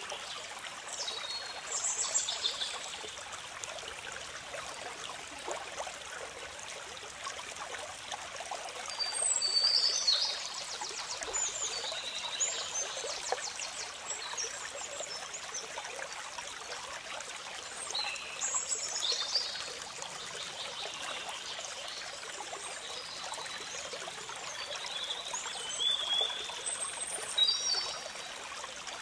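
A stream running with a steady trickling rush. Birds chirp over it in short high bursts four times, and these are the loudest sounds.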